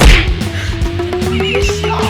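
Loud background rock music with a steady beat and a slowly rising held note, opening with a sharp crash-like hit.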